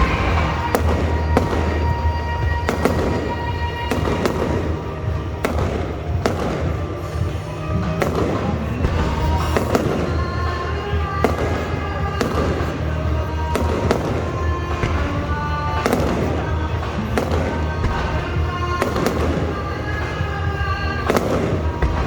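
Fireworks going off in a rapid series of bangs, about one or two a second, over loud music playing.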